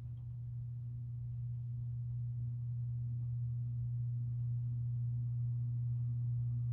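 Hampton Bay Littleton ceiling fan's motor giving a steady low electrical hum that grows gradually louder.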